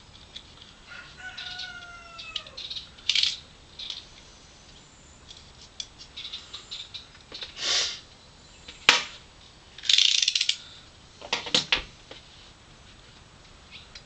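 Birds calling: one call falling in pitch, then a series of short, harsh, high-pitched chatters, one ending in a sharp click.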